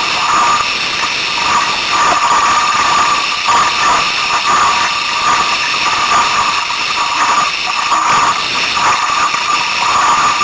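Strong wind blowing across the microphone and water rushing and splashing along the hull of a small Sunfish sailboat running fast in storm winds: a loud, steady rushing hiss.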